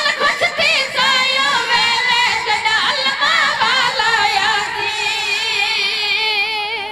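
Boys' high voices singing a Shia devotional lament into a microphone, unaccompanied, with a heavy wavering vibrato; the second half is one long held note.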